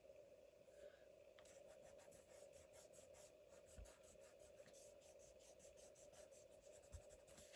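Faint, quick scratching strokes on paper, a journal page being rubbed or written on, over a steady low hum.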